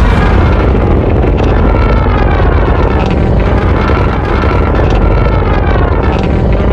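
Godzilla sound effect: a long, loud, continuous rumble with wavering higher tones bending over it.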